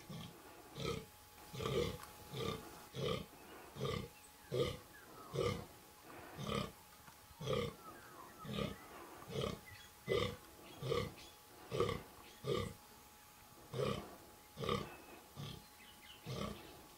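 Fallow buck groaning in the rut: a long run of low, rhythmic grunting calls, roughly one a second, about twenty in all, with a brief pause about three quarters of the way through.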